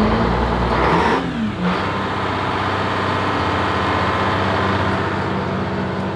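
Detroit Diesel 6V71, a two-stroke V6 marine diesel, running. Its pitch rises and falls once in the first second and a half, then it settles to a steady idle.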